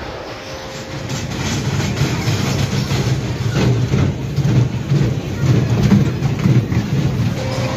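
Small dragon-themed kiddie roller coaster running past on its track: a low rumble of the cars' wheels on the rails that swells from about a second in and stays loud, with a few knocks.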